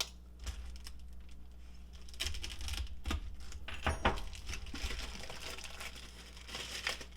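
Packaging being unwrapped by hand: rustling and crinkling with scattered clicks and knocks, busiest in the middle.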